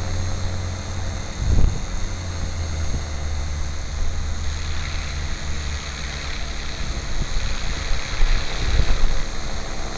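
Gaui radio-controlled helicopter flying inverted, its rotor and motor giving a steady drone with constant pitch.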